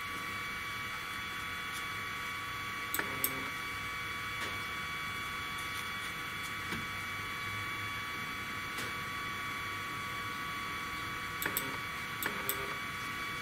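Steady high-pitched electrical whine from the powered 3018 CNC router's stepper motors, holding while the machine stands still, with a few short clicks about three seconds in and again near the end.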